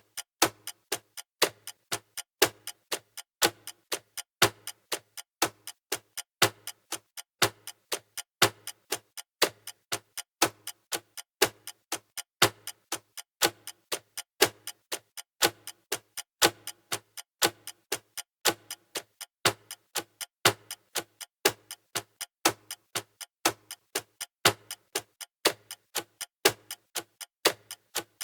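Mechanical clock ticking steadily, several sharp ticks a second, some louder than others.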